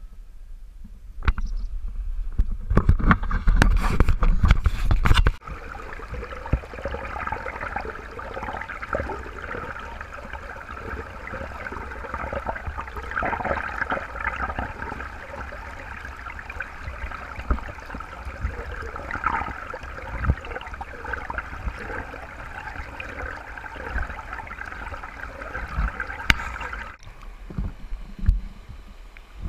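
Water running in a stream: a steady, flickering rush. From about two to five seconds in, a louder rumbling noise covers it.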